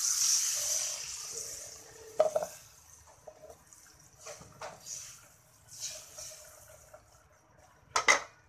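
Water being poured into a hot wok of sautéed spices, a loud rushing hiss that fades after about two seconds. Then a knock, a metal spatula stirring and scraping in the wok, and a loud clatter near the end.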